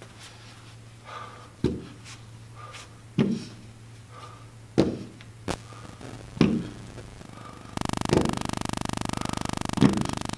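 Dumbbells knocking down onto the gym floor during plank rows, seven knocks at roughly one every second and a half as each weight is set back down after a row. A steady buzz comes in near the end.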